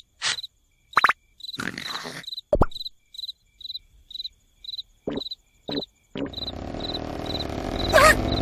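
Cartoon night ambience: a cricket sound effect chirping steadily, about two short high chirps a second, broken by a few brief squeaks and thumps. About six seconds in, a low rumbling noise starts and slowly grows louder under the chirping.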